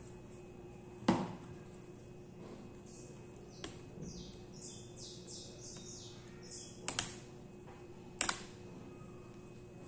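Small handling noises from hands working inside an opened laptop: a few sharp plastic clicks and taps, the loudest about a second in and a close pair near seven seconds. Between about three and six and a half seconds comes a run of short scratchy strokes.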